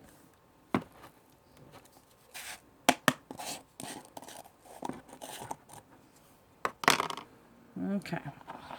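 Small nail-supply containers handled on a table: a few sharp clicks and taps, two close together about three seconds in and a loud one near seven seconds, with brief rustles between.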